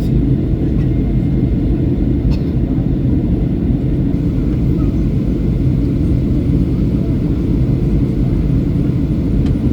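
Steady low rumble inside the cabin of a Boeing 737-800 in descent: airflow over the fuselage and the CFM56-7B engines.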